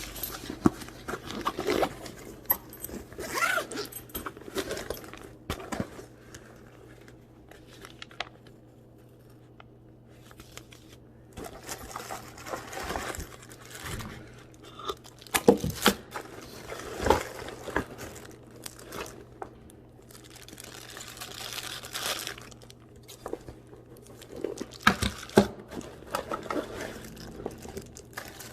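Packaging being handled and opened during an unboxing: crinkling and tearing of wrapping, with scattered knocks and clicks as items are moved. There is a quieter lull about eight to eleven seconds in.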